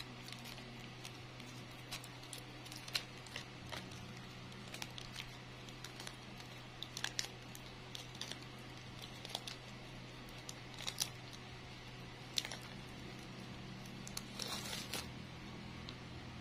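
Thin plastic-bag strip crinkling in short, irregular crackles as it is wound around a flower stem, over a steady low hum.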